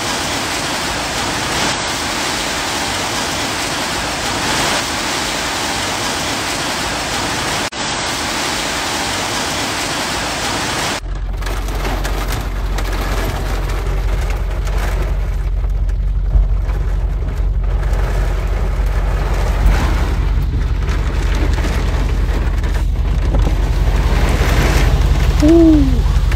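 Steady hiss of heavy rain. About eleven seconds in, the sound changes abruptly to rain heard from inside a car, with a deep steady rumble under it. Near the end there is a short falling squeak.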